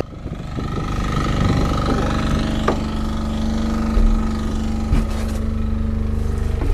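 An engine running steadily with an even pulsing drone, with a couple of short knocks about three and five seconds in.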